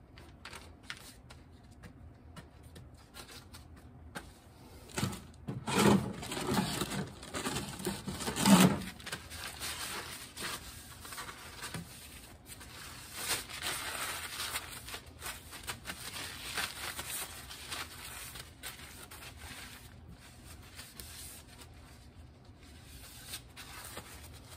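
Paper towels rustling and crumpling as they are rubbed over a wet copper plate to dry it. The loudest rustles come about six and eight and a half seconds in, with softer wiping after.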